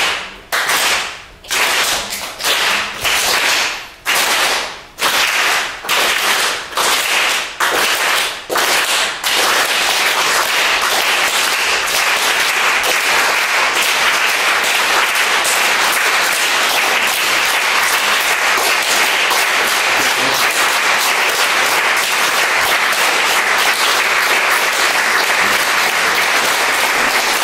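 A group of people hand-clapping in a rhythm exercise: separate claps speed up steadily until, about nine seconds in, they merge into a continuous patter of fast clapping.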